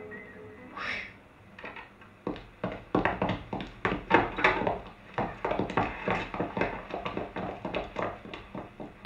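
A dog barking over and over, several quick barks a second.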